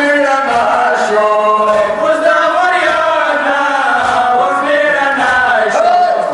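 Male voices chanting a Muharram mourning lament (noha), the sung line running on with long held notes.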